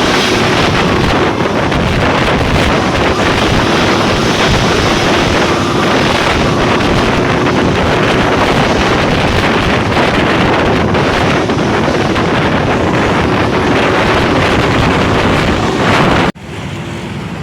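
Heavy wind blowing on the microphone, a loud, steady rushing noise that cuts off abruptly about sixteen seconds in.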